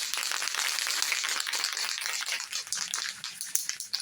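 Aerosol spray can of etch primer being shaken hard, its mixing ball rattling rapidly inside with a dense clatter and hiss.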